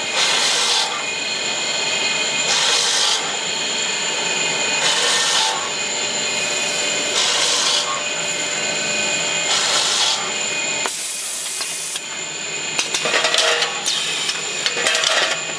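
Automatic brake lining drilling machine drilling holes in curved drum brake linings: short bursts of drilling come about every two and a half seconds over a steady high motor whine. Near the end the sound turns busier, with a quick run of sharper knocks.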